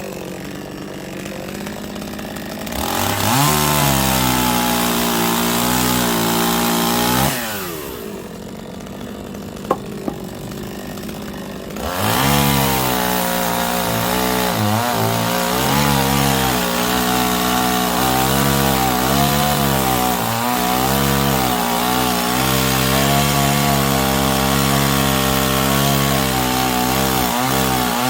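Chainsaw cutting firewood: the engine idles, is revved up into a cut for about four seconds, drops back to idle with a single click, then runs at full throttle again from about twelve seconds in, its note dipping again and again as the chain bites into the wood.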